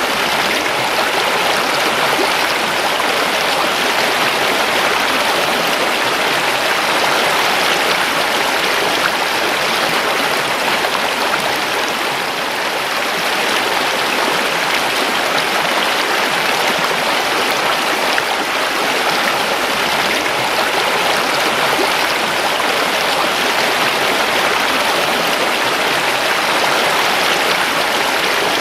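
A river running: a steady, even rush of flowing water.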